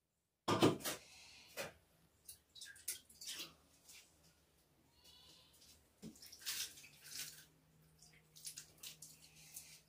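Quiet, wet eating sounds of rice and chicken curry being eaten by hand: scattered little clusters of sticky clicks and smacks with short pauses between.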